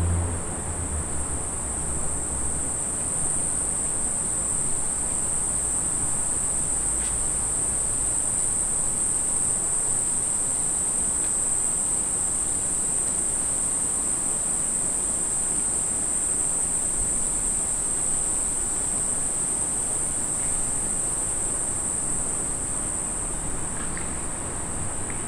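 Insects calling in a steady, high-pitched chorus that holds one unbroken pitch throughout, over a low, even hum of outdoor background noise.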